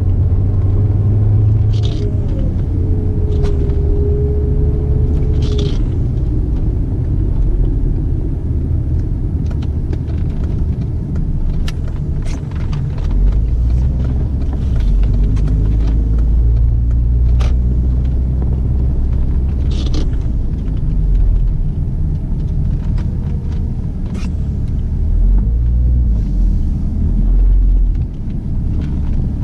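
Audi S6 on the move, its engine making a steady low rumble. A turbocharger whine glides up and down in pitch in the first few seconds and returns faintly later. Sharp clicks come now and then.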